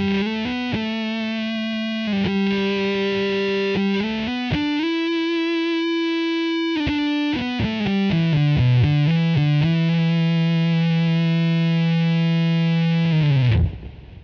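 Electric guitar played direct through a Line 6 POD 2.0 amp-modelling patch with a distorted, sustaining tone. It plays a single-note melodic line with a long held note in the middle, and ends on a held low note that cuts off sharply near the end.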